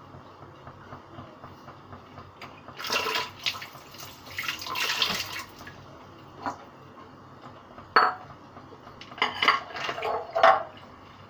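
Kitchen clatter of dishes, pots and utensils in several irregular bursts, mixed with the sound of water. The louder bursts come about three seconds in, around five seconds, at eight seconds and again near the end.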